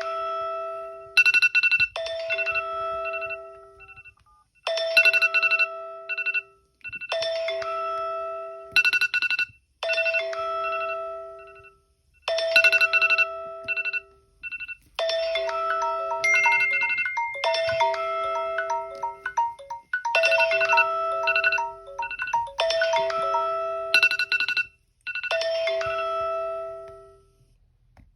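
Smartphone ringtone/alarm tones playing: a short melodic chime phrase that repeats about every two seconds. Partway through, a second phone's rapid beeping, about four beeps a second, plays over it for a few seconds.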